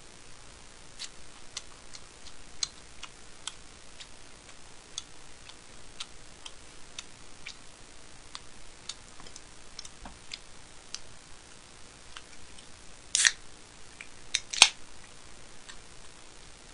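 Chopsticks tapping and clicking against plastic takeout trays and containers during a meal, in light scattered ticks. Near the end come two louder clacks about a second and a half apart.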